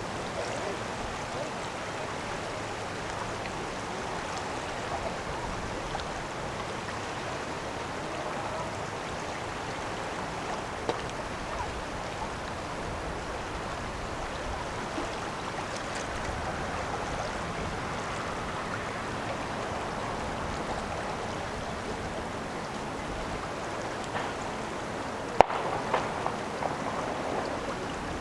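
Steady rushing and lapping of river water, with a single sharp click near the end.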